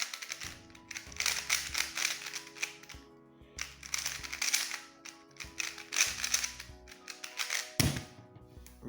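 Rapid clicking and clacking of a QiYi QiMeng V2 plastic 3x3 speedcube being turned fast during a solve. The turning comes in bursts with brief pauses, a louder knock comes near the end, and background music plays underneath.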